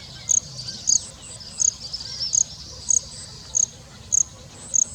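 Insect chirping: eight short, high chirps evenly spaced about every two-thirds of a second, with faint twittering between them in the middle.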